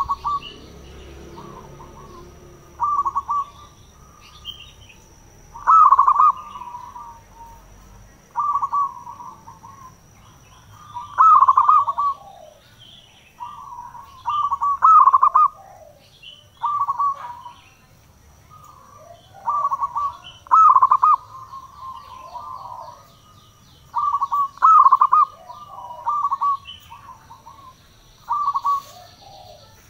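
Zebra dove (perkutut) cooing: short, rapid rippling coo phrases repeated every two to three seconds, some louder than others.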